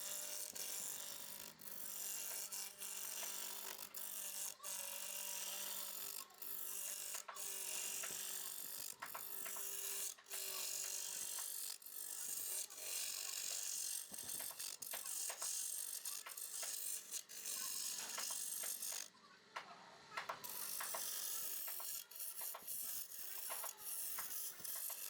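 Wood lathe turning, a chisel cutting the spinning wood: a steady scraping hiss broken by many sharp clicks, with a low motor hum beneath. The cutting stops briefly about 19 seconds in, then resumes.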